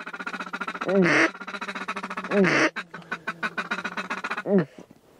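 Mallard duck call blown by a hunter: three loud, drawn-out quacks that fall in pitch, with a fast, even chatter of short clucks between them (a feed chuckle), working the ducks circling over the decoys. The calling stops shortly before the end.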